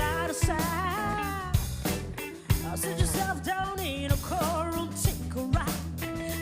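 Live funk band playing: a drum kit keeps a steady groove over a bass line, while a lead melody bends and slides in pitch above.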